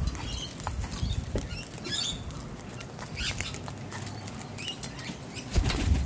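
Sulphur-crested cockatoo feeding from a plastic cup of sunflower seeds, its beak rattling through the seeds and cracking them in irregular clicks and rustles, with a louder low thump near the end.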